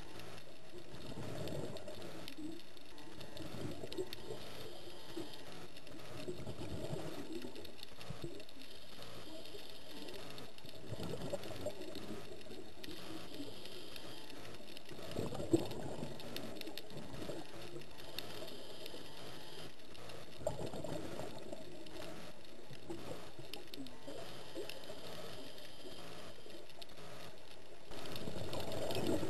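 Underwater scuba sound: a diver's exhaled bubbles gurgling from the regulator every few seconds over a steady underwater hiss. The level steps up near the end.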